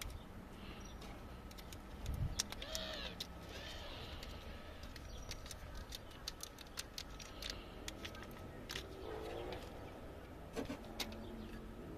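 Small clicks and crinkles of a plastic packet and a small rubber oil-filter seal being handled by hand, with bird calls in the background.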